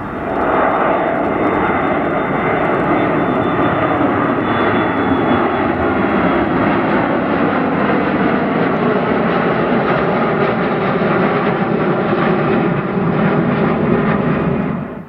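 Boeing 737-300 airliner's CFM56 turbofan engines at takeoff thrust as it climbs out. It is a loud, steady jet noise with a faint high whine in it. The noise swells in at the start and cuts off abruptly at the end.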